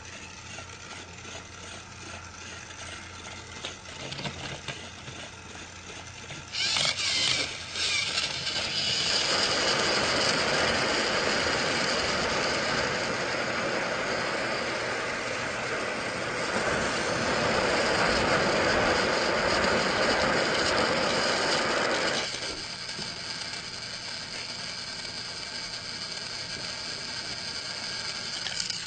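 Battery-powered toy train motors whirring as they run along plastic track. The sound jumps to a loud clatter about a quarter of the way in, stays loud for over ten seconds, then drops back to a quieter steady whir.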